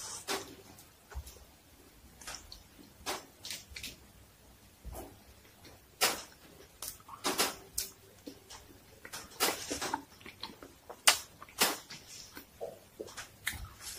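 A person chewing a mouthful of toasted sandwich with lettuce: irregular crisp crunches and wet mouth smacks.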